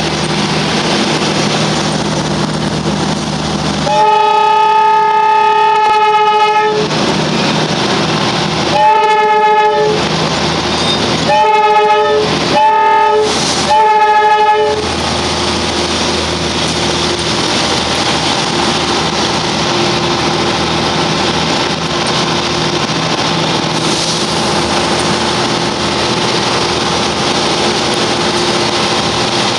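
Darjeeling Himalayan Railway narrow-gauge diesel locomotive sounding its horn: one long blast about four seconds in, then four short blasts, over the train's steady engine and running noise on the track.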